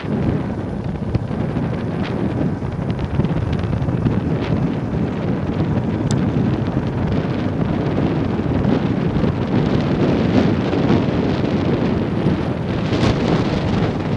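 Wind buffeting the microphone on a moving Royal Enfield Bullet motorcycle, with the bike's single-cylinder engine running underneath.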